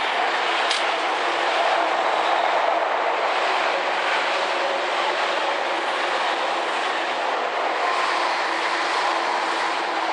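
Tokyu 8500 series electric train passing close by, a steady loud run of wheel and running noise with wheels clacking over the rail joints. A single sharp click comes a little under a second in.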